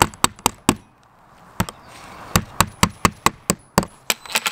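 Claw hammer tapping a metal L bracket into a carpet-covered wooden board: a dozen or so sharp knocks, a quick run of four, a short pause about a second in, then a faster series of blows.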